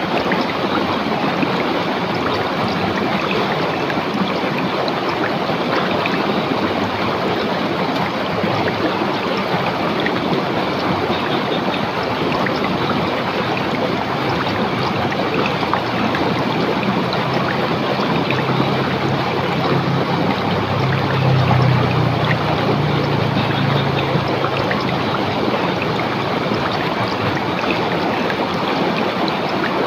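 River water rushing and splashing over rocks, a steady even noise. About two-thirds of the way through, a low rumble swells for several seconds and fades.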